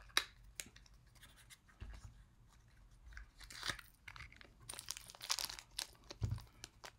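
Small plastic toy packaging being opened and handled: crinkling and rustling with scattered clicks and snaps, and louder rustles about three and a half seconds in and again around five seconds.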